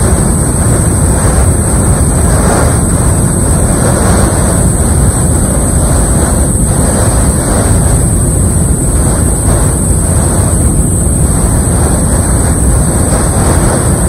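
Waterfall heard from right behind its curtain: heavy water pouring and splashing onto rock and pool close by, a loud, steady rush with a strong low rumble.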